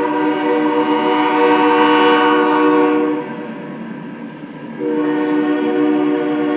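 A Union Pacific locomotive's Nathan Airchime air horn sounding. One long blast cuts off about three seconds in, and after a pause of about a second and a half, filled with train rumble, a second long blast begins.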